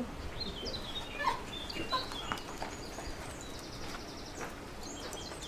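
Small birds chirping in the background: scattered short high calls and a brief trill, over a faint outdoor hush.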